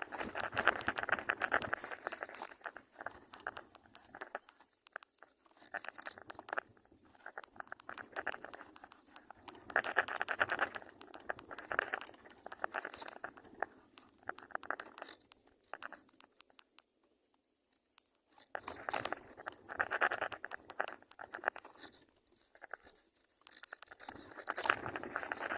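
Bursts of rustling and crackling with many small clicks, like leaves and nest material being shifted, broken by a near-silent pause of about two seconds past the middle.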